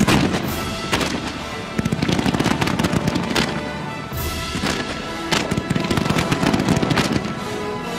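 Fireworks crackling and popping in dense rapid bursts, with sharp bursts at the start and again about four seconds in, over music.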